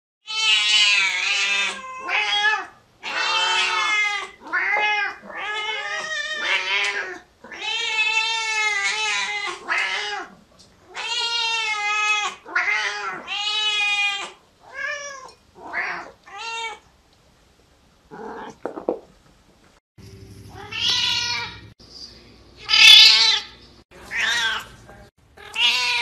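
Several domestic cats meowing loudly over and over, long drawn-out meows following one another closely. After a short pause, a few more meows come over a low steady hum.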